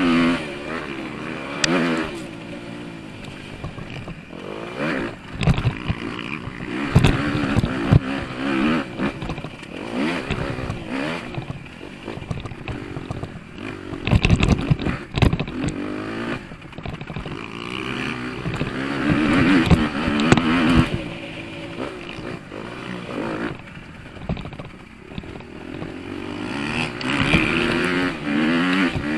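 Motocross bike engine revving hard and easing off again and again as it is ridden over a dirt track, heard from a camera mounted on the bike, with several sharp knocks along the way.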